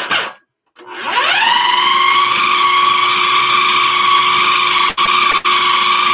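Food processor motor stops for a moment, then starts again with a rising whine and runs steadily, chopping a thick filling with little liquid in it. It cuts out twice, briefly, near the end.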